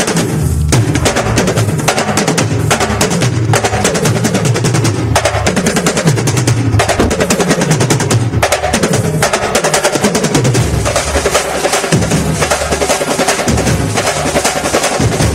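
Dance music with fast, dense drumming and a moving bass line, played over stage loudspeakers.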